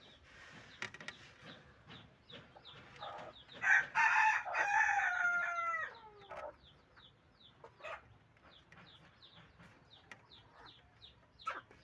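A rooster crows once, a call of about three seconds that falls in pitch at its end. Faint short high chirps repeat throughout.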